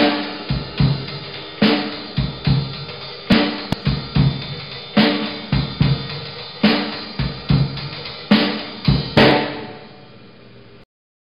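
Drum kit playing a slow striptease 'walk' beat: bass drum and snare hits in a steady groove, with a loud cymbal-crash accent about every one and a half seconds. The last crash comes near the end and rings out, then the sound stops.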